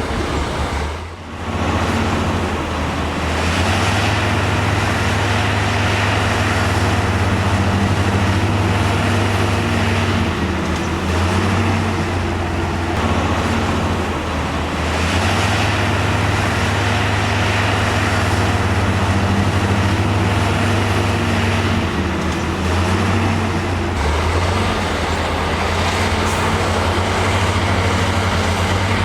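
Heavy diesel engine of earthmoving machinery running steadily under load, its note easing and picking up again several times. There is a brief drop about a second in.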